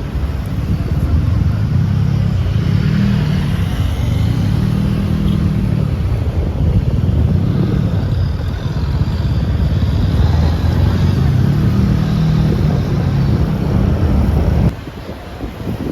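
A motor vehicle's engine running while driving, with wind buffeting the microphone. The loud low rumble drops sharply near the end.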